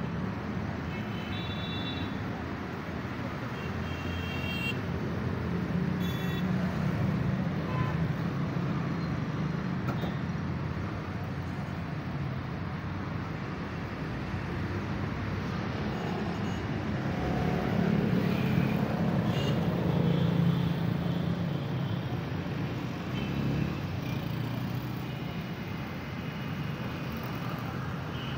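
Massey Ferguson tractor's diesel engine idling with a steady drone, growing louder for a few seconds past the middle.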